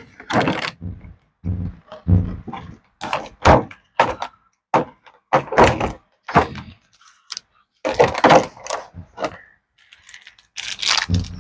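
Toy packaging being handled and unpacked: irregular thunks, knocks and rustles of cardboard and plastic.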